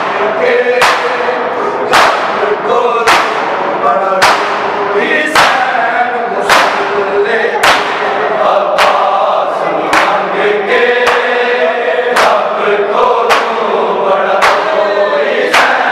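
Men's voices chanting a Punjabi noha together, with loud open-hand chest-beating (matam) slaps landing in time, about one slap a second.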